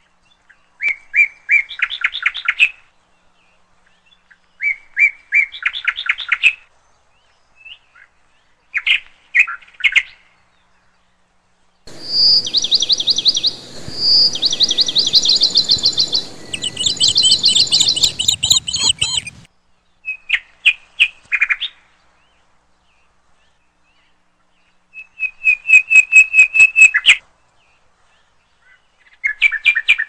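A songbird singing in short phrases of rapid repeated notes, a few seconds apart. About twelve seconds in comes a longer, louder and higher run of song that lasts several seconds.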